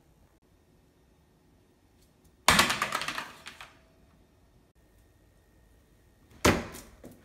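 Two clattering impacts about four seconds apart, each with a short rattle that dies away, as small tossed objects land on hard kitchen surfaces. The first is a plastic coffee pod clattering onto a glass-top stove.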